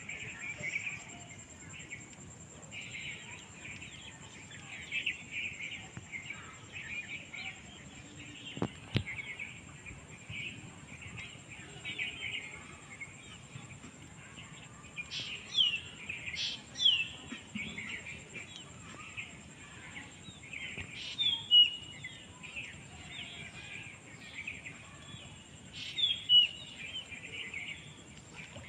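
Birds chirping steadily, with a few sharper, louder falling calls in the second half.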